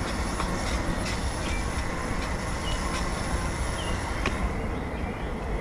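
Motor scooter running as it climbs slowly up a hill off-road, a steady noisy rumble with scattered clicks and rattles.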